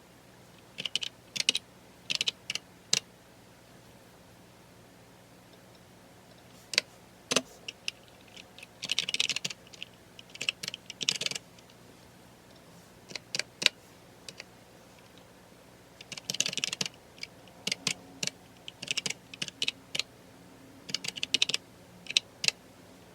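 Typing on a computer keyboard: quick runs of key clicks in short bursts, broken by pauses of a second or more, with a longer break about three to six seconds in.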